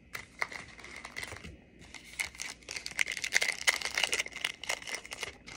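A trading-card pack wrapper being torn open and crinkled: a dense run of crackles that gets busier about two seconds in and stops abruptly near the end.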